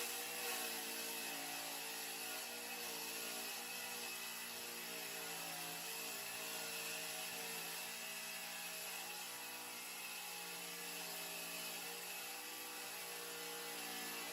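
An electric motor running steadily: an even whirring hum with a hiss above it.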